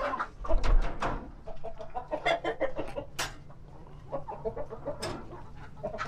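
Laying hens clucking in a chicken coop, with a few sharp knocks and clicks from handling at the nest boxes, the loudest about half a second in.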